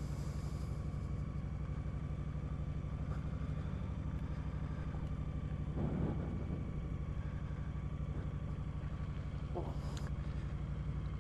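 Motorcycle engine idling steadily just after a cold start.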